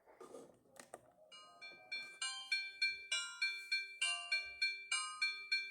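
Siemens AL21 mobile phone playing a ringtone through its loudspeaker: a bright, chiming melody like mallet percussion that starts a little over a second in and grows louder, then repeats steadily at about four notes a second. A faint click comes just before it starts.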